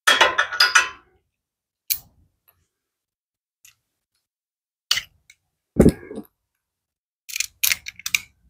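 A ratchet and socket clicking rapidly for about a second, then scattered single clicks and knocks as the tools are handled. A heavier knock comes about six seconds in, and a short run of clicks near the end.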